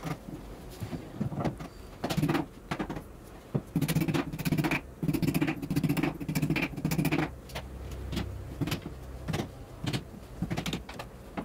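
Carpenter's hammer knocking nails into a wooden support batten and the plywood sides of a bed box: a rapid, uneven run of knocks, denser in the middle, with the footage sped up.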